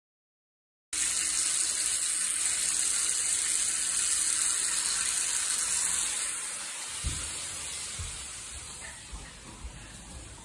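Steady rush of water running from a tap, starting about a second in and fading over the last few seconds.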